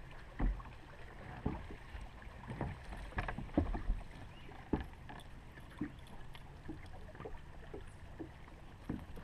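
Irregular knocks, taps and clicks of handling on a bass boat's deck while a hooked bass is being unhooked by hand, with a couple of louder thumps about half a second and three and a half seconds in. A faint steady low hum runs underneath.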